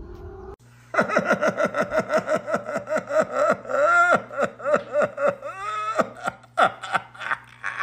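A person laughing hard: a long run of quick, high-pitched "ha" pulses, about five a second, starting about a second in, with a short break and a few more laughs near the end.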